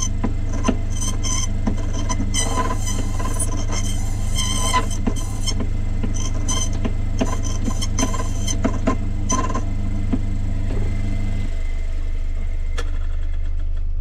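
Cyclone key-cutting machine's motor running with a steady hum while its cutter cuts a brass mortice key, in many short, repeated bursts of cutting noise. The cutting stops after about nine seconds and the motor hum drops lower a couple of seconds later.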